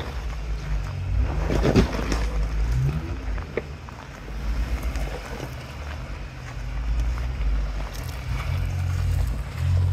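Jeep Wrangler Unlimited engine running at low revs as it crawls over rocks in a creek bed, the throttle rising and falling. A burst of crunching about two seconds in.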